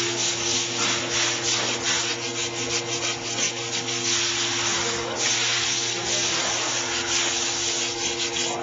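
Wire brush scrubbing the pad grooves of a brake caliper bracket clean, in repeated irregular rasping strokes over a steady low hum.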